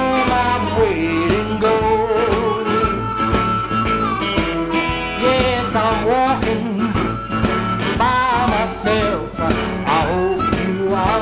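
Blues band playing: amplified harmonica, cupped against a microphone, wails bent notes over electric guitar and a steady beat.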